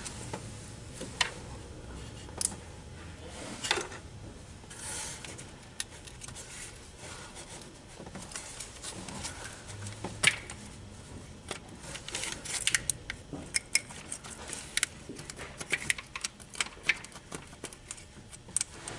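Hands working an automatic transmission's internal wire harness through from the top of the case: scattered clicks, taps and small rattles of parts being handled and pushed, with no steady machine sound.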